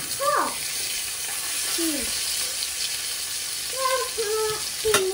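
Salmon fillets sizzling in butter in a frying pan, nearly cooked. A sharp click comes near the end.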